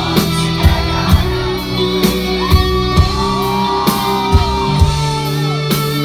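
Pop-rock band music with a steady drum beat, bass and guitar, and a few sliding melodic lines in the middle.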